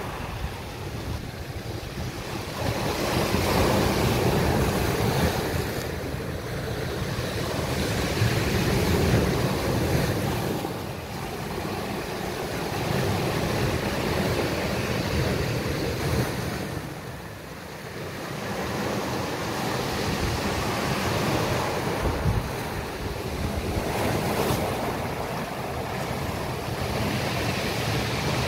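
Sea surf breaking and washing up a beach, swelling and falling back every few seconds, with wind buffeting the microphone.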